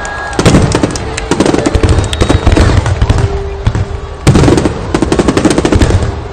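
Fireworks display at its climax: shells bursting with heavy booms and dense crackling, with two big bursts about half a second and four seconds in.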